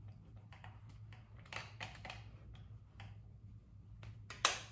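Powder blush being applied with a makeup brush: soft swishes and light taps of the brush, with one sharper click near the end, over a low steady hum.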